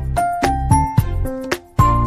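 Background music: a tune of short, bright notes that start sharply and die away, a few to the second, over a low bass.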